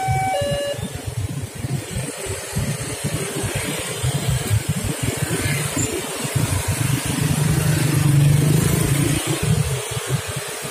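The level crossing's electronic warning chime alternates two tones and stops just after the start. Then motorcycles and cars pull away and pass in a steady stream of engine and traffic noise as the barriers lift.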